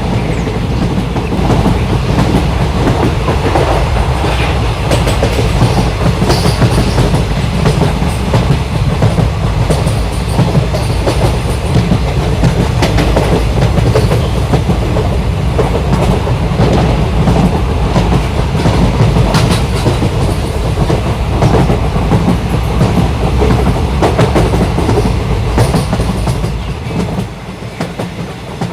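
A moving train: a steady loud rumble of the carriages with the clickety-clack of the wheels over rail joints. The low rumble drops away about two seconds before the end.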